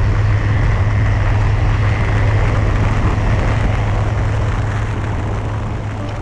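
Light aircraft engine and propeller droning steadily in flight, a KFA Bushbaby kitplane cruising, easing off slightly near the end.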